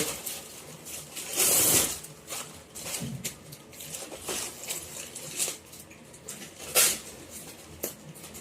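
A fabric laptop bag and its packaging being handled, making irregular rustles and scrapes. There is a longer rustle about one and a half seconds in and a sharp one near the end.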